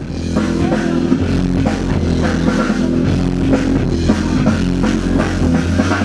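Loud music with a steady drum beat and sustained bass notes, starting suddenly out of silence.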